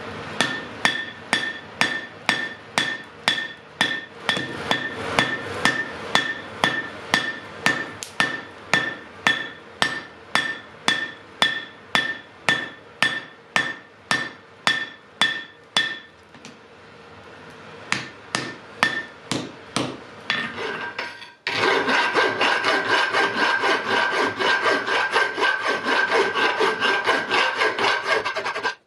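Hammer blows on hot iron at the anvil, a steady rhythm of about two strikes a second, each blow leaving a clear high ring. After a brief pause and a few more blows, a continuous rasping scrape on the metal takes over for the last several seconds.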